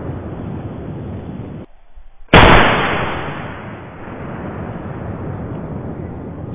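A single black-powder cap-and-ball revolver shot about two seconds in, a sharp loud blast that fades out over a second or so, against a steady noisy background.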